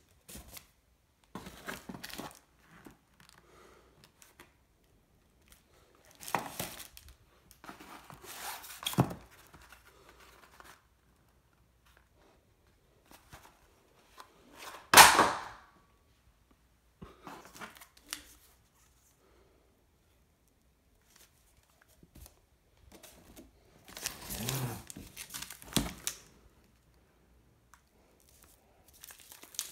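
Plastic wrapping and cardboard fireworks tubes crinkling and rustling as they are handled, in a series of separate bursts with quiet gaps between them. About halfway through comes one short, much louder rustle or tear.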